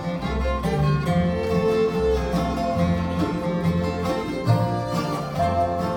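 Bluegrass band playing an instrumental break: acoustic guitar and fiddle over steady low bass notes, with no singing.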